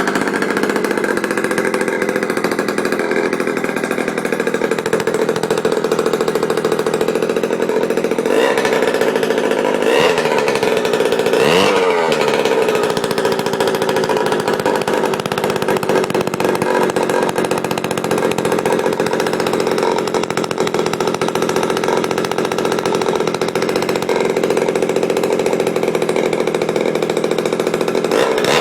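Freshly rebuilt 50cc two-stroke single-cylinder engine of a 1966 Harley-Davidson (Aermacchi) M50 running on its test run, at a steady fast idle. The pitch swings up and down a few times between about eight and twelve seconds in, as the throttle is blipped.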